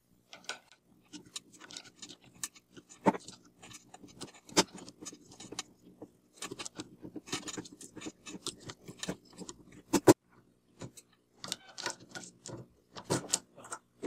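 Steel screwdriver tip scraping and clicking against a small 608Z ball bearing as it is pried, a little at a time, off the shaft of a vacuum cleaner motor rotor, with irregular metallic clicks and one sharp click about ten seconds in.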